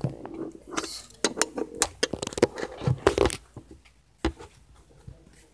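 Things being handled on a tabletop as a sheet of paper is laid down and pressed flat: a quick run of clicks, knocks and rustles, then one more knock a little after four seconds, and quieter after that.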